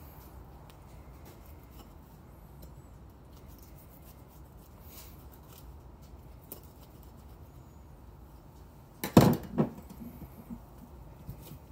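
Faint scraping and clicking of a knife working through a goose carcass, with a loud double thump about nine seconds in and a few lighter knocks after it.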